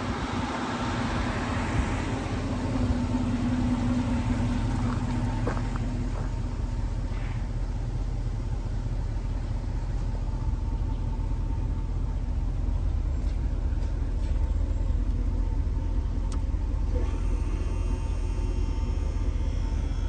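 Ford 400 cubic-inch supercharged V8 idling steadily.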